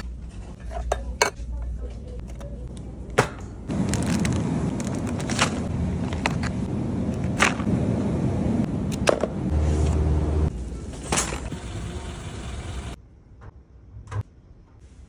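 Grocery store background noise with a steady rumble, and sharp clicks and knocks of cans and plastic tubs being handled on shelves. Near the end it drops suddenly to a quiet room, with a few soft knocks as fruit is set on a metal-framed tiered tray.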